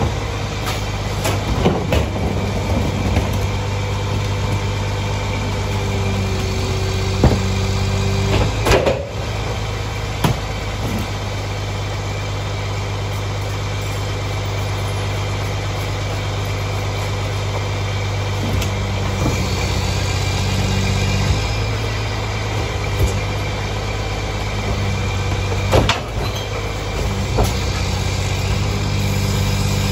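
Mack MR garbage truck's diesel engine idling steadily behind a rear-load packer, with a few sharp bangs as plastic trash carts are tipped and knocked against the rear hopper.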